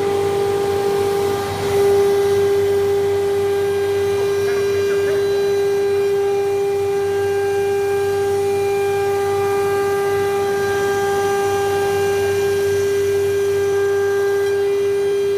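Spindle of a COSMEC FOX CNC nesting router running at speed, a steady high whine with overtones over a low machine hum, dipping briefly about a second and a half in.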